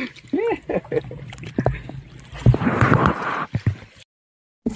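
Paddle splashing and churning the water beside a woven basket boat, with a few short wordless exclamations in the first second. The sound cuts off abruptly about four seconds in.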